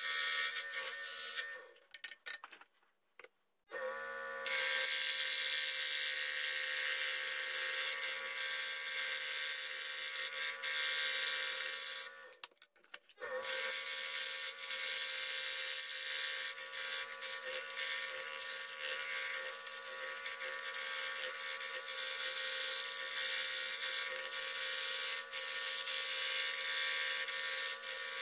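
Scroll saw running and cutting thin wood along a paper pattern: a steady motor hum with the fast rasp of the reciprocating blade. The sound drops out briefly twice, early on and about halfway through, then starts again unchanged.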